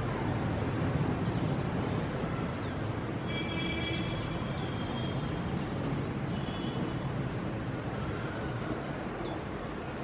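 Faint, short, high chirps and thin piping notes from a flock of Indian silverbills, over a steady low rumble of background noise.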